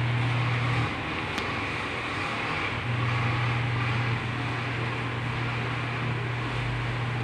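Steady low mechanical hum over a constant rush of background noise. The hum drops out for about two seconds near the start, then returns.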